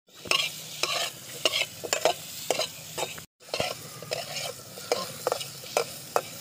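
Potatoes frying in oil in an aluminium karahi, a steady sizzle, while a metal spatula repeatedly scrapes and knocks against the pan. The sound drops out briefly about three seconds in.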